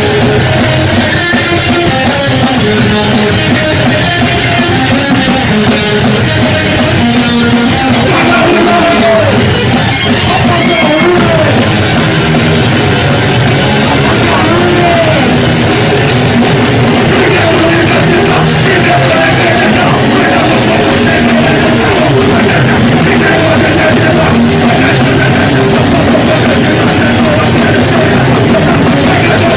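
A punk rock band playing live and loud: guitar, bass and drum kit, with a singer's shouted vocals over them.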